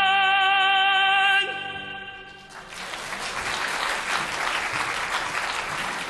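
A tenor holds the final sung note with vibrato over sustained accompaniment chords, cutting off about a second and a half in; after a brief fading reverberation, the audience applauds.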